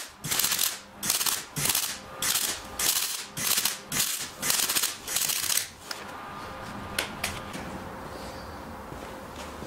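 MIG welder laying short welds on a car subframe, a run of crackling bursts about one and a half a second, each lasting about half a second. The welding stops about six seconds in, leaving a faint steady hum with a couple of clicks.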